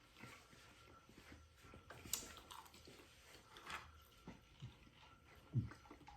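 Quiet chewing and biting of a chicken sandwich, with faint crunches and mouth clicks and a louder low thump near the end.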